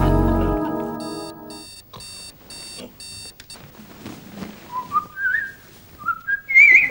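Electronic alarm clock beeping, five short beeps about half a second apart, after a music sting fades out. Near the end comes a rising, stepping whistle-like tone that ends in a wavering warble.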